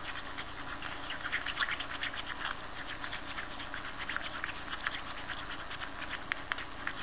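Wooden spoon stirring a thick yogurt and ground fenugreek paste in a small glass bowl, making a run of irregular soft scrapes and clicks against the glass.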